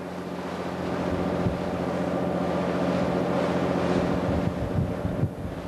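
A small fishing boat's diesel engine running steadily under way, a low even drone, with wind buffeting the microphone and the rush of the sea along the hull.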